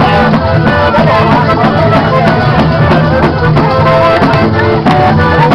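Pizzica, southern Italian folk dance music, played loud with a fast, even beat under a melody.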